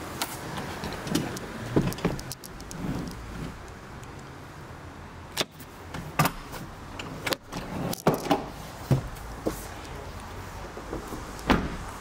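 Irregular clicks and knocks from handling inside a car's cabin, over a steady low hum, with a sharper knock near the end.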